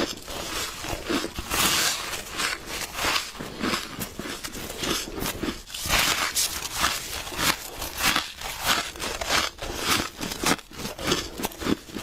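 Close-up crunching and crackling of a person biting into flaky, frosty ice, in quick irregular bites with squeaky, crumbly crackles.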